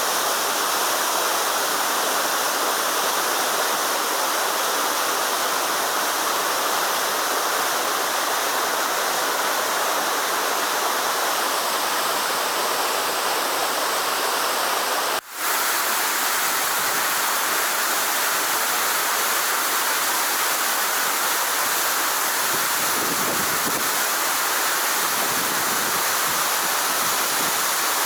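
Waterfall rushing, a steady, dense roar of falling water, broken only by a split-second dropout about halfway through.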